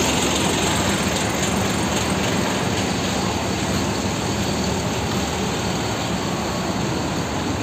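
A large bus engine running steadily within a constant noisy hum.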